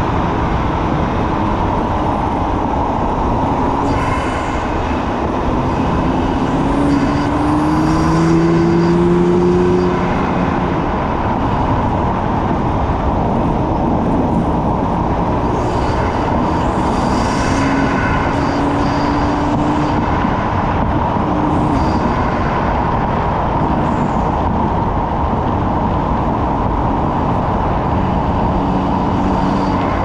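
BMW F80 M3's twin-turbo straight-six driving through an M Performance titanium exhaust, its note rising as the car accelerates about eight seconds in and again past twenty seconds. Heavy steady road and wind noise sits under it, with brief hissing flutters now and then.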